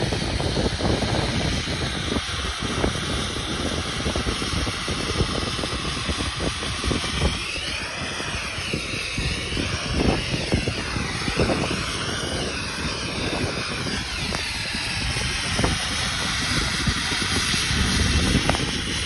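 Steady jet-like roar of a ski-slope snowmaking gun blowing snow, with wind buffeting the microphone. The hiss wavers in pitch for several seconds around the middle.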